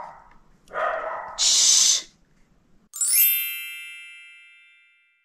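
A short loud hiss about a second and a half in, then a bright chime about three seconds in. The chime opens with a quick upward run of notes and rings on, fading away over about two seconds.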